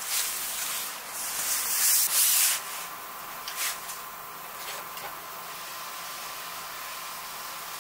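Satin and silk hanbok fabric rustling as it is handled, in loud rushes over the first two and a half seconds. Then a quieter steady hiss while a clothes iron slides over the fabric.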